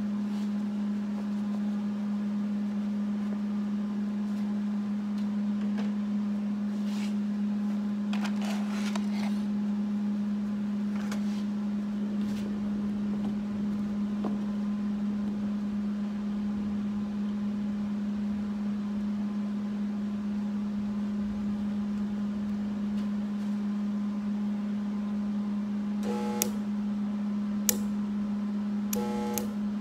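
Steady low electrical hum of a stick welder switched on and idling, with a few short sharp crackles near the end as the 6013 electrode is struck against the cargo rack to start the arc.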